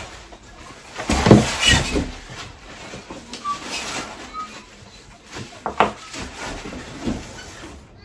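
Polystyrene foam packing and cardboard being pulled out of a box: rustling and scraping, loudest in a burst about a second in, with a few sharper knocks later on.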